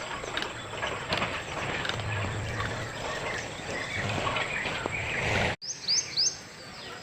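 Busy outdoor ambience full of bird chirps and calls. It breaks off abruptly about five and a half seconds in, then three loud, sharp bird calls follow in quick succession over quieter surroundings.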